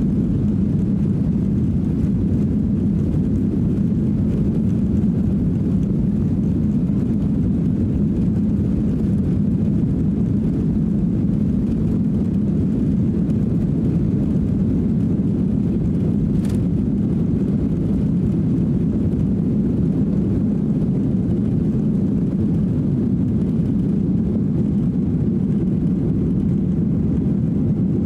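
Boeing 737-800's CFM56-7B turbofan engines at takeoff thrust, heard inside the cabin: a loud, steady low rumble through the takeoff roll as the airliner accelerates down the runway and lifts off.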